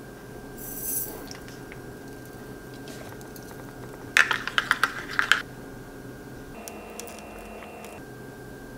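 Kitchen handling sounds over a faint steady hum: a brief scrape about a second in, then a quick run of about seven sharp clicks and splashes lasting about a second, as water is poured from a plastic bottle into a stainless steel measuring cup of peanut butter with a plastic spoon standing in it.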